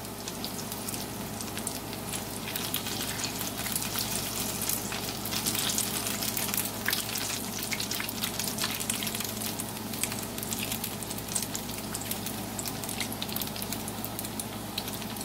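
Battered broccoli florets deep-frying in hot oil in a skillet: a steady sizzle full of fine crackling pops.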